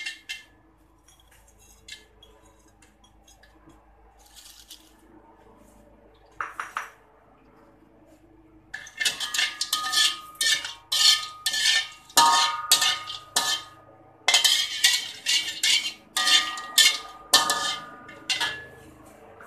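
Metal fork scraping and clinking against a metal wok as whole spices are stirred in oil: a fast run of loud strokes with a ringing metallic tone, starting about nine seconds in. Before that, a few light clicks as the spices are dropped in.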